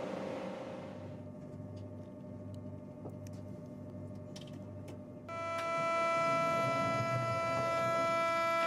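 Low hum with a few faint clicks in a train doorway. About halfway through, a steady electronic warning tone of several pitches starts suddenly and holds: the door-closing alarm of a TGV before departure.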